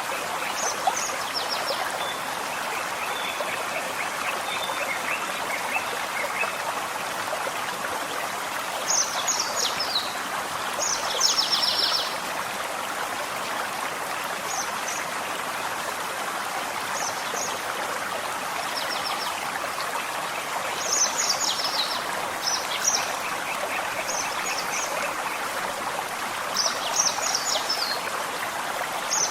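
Gentle forest stream running steadily, with songbirds singing short high phrases several times over it, loudest around a third of the way in. A lower, rapid trilling call comes twice, a few seconds in and again about three quarters through.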